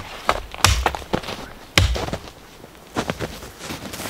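Axe chopping into a log: two heavy chops a little over a second apart in the first two seconds, then a few lighter knocks.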